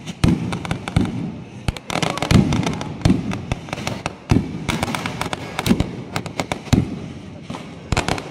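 Aerial fireworks going off in rapid succession: sharp bangs about once a second with crackling between them, and denser clusters of bangs about two seconds in and again near the middle.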